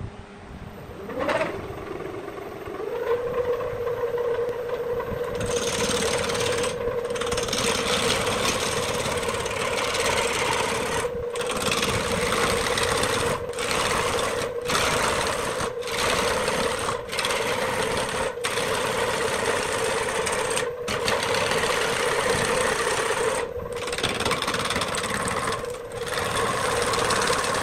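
Wood lathe motor starting with a click about a second in and spinning up into a steady hum. From about five seconds in, a turning tool cuts into the spinning bark-covered log blank: loud rough cutting noise that drops out briefly every second or two as the tool is eased off.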